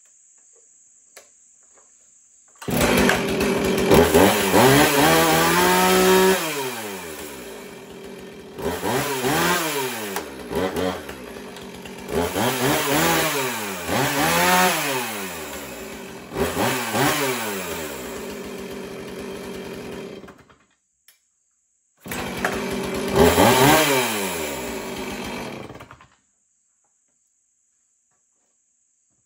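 Husqvarna 450 e-series two-stroke chainsaw starting about three seconds in, then revved up and down about six times with idling in between before it stops. It is started again a second or so later, revved once and shut off.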